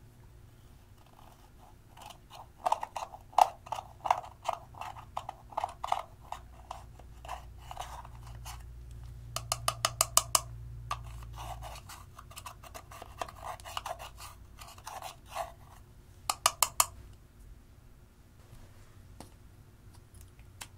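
A scissor tip scraping and crumbling pressed powder blush out of its plastic compact: runs of quick scratchy strokes and sharp clicks, with a fast cluster of clicks about ten seconds in and another near the end.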